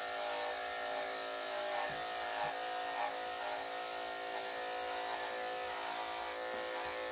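Corded electric dog-grooming clipper with a #10 blade running steadily, a constant even hum as it shaves the dog's damp body coat.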